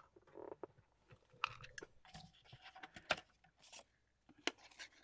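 Kraft cardstock from a hanging file folder rustling and crinkling as pieces are handled and shifted, with a few sharp clicks and taps, the loudest about three seconds in.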